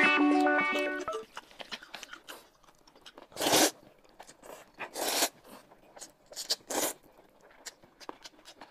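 A short musical sting fades out in the first second. Then noodles are slurped three times, each a brief rush of air and noodles, with soft chewing and wet mouth clicks in between.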